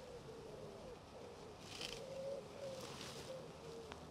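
A pigeon cooing faintly, in repeated phrases, with a brief rustle about two seconds in.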